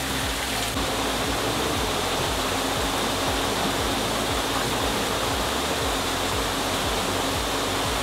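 Steady rush of running water in the koi holding tubs, even throughout with no single splashes standing out.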